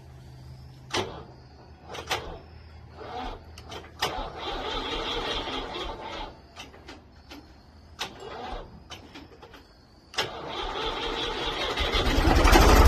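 A vehicle engine being started off a portable jump starter after its battery went flat: a few sharp clicks, a stretch of cranking, then a second crank that catches near the end into a loud, steady running engine.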